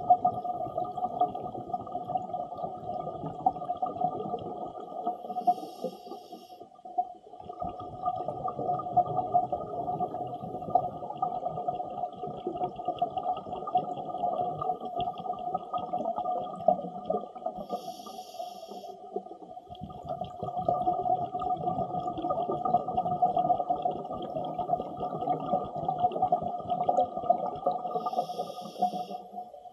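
A scuba diver breathing through an Apeks XTX-50 regulator underwater: long stretches of exhaled bubbles rumbling, broken three times, about twelve seconds apart, by a brief pause and a short high hiss as the diver inhales through the second stage.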